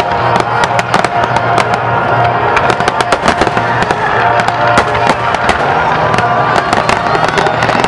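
A continuous barrage of aerial firework shells bursting in quick succession, several sharp bangs a second, with music playing underneath.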